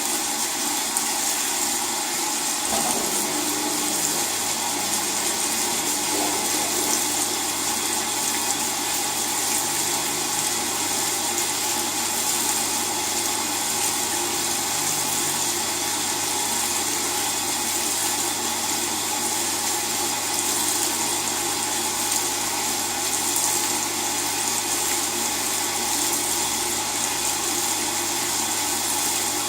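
LG WT-R852 direct-drive washing machine filling with water: a steady rushing of water pouring into the drum. A low, steady hum joins about three seconds in.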